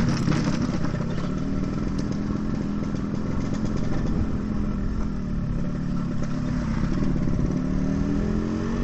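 Yamaha RX-King's two-stroke single-cylinder engine running under way through an aftermarket straight-through 'pure sound' exhaust. The engine note sags in the middle and climbs again over the last few seconds.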